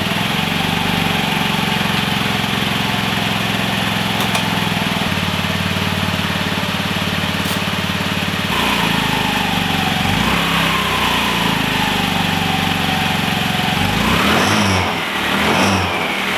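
Honda Metropolitan scooter's small single-cylinder four-stroke engine, its carburetor freshly cleaned, idling steadily for about eight seconds and then revved in several short throttle blips, the highest near the end.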